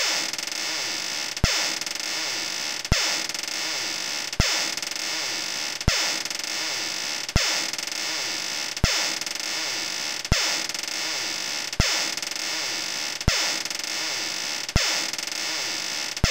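Looped scary creaking-door sound effect: a steady synthetic hiss with faint creaking glides, broken by a sharp click about every one and a half seconds.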